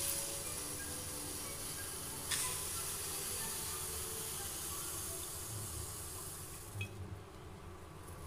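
Faint steady hiss as cooking oil is poured into a hot aluminium kadai and heats in it, fading out about seven seconds in. A single light knock about two seconds in.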